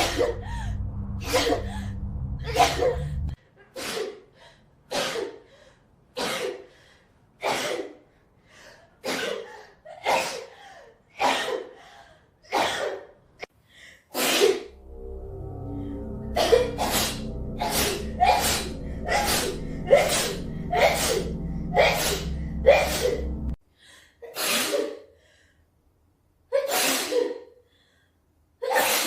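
A long run of sneezes, one after another about every second, each a sharp burst with its drawn-in breath before it. A steady low hum runs under the sneezes for a few seconds at the start and again through the middle stretch.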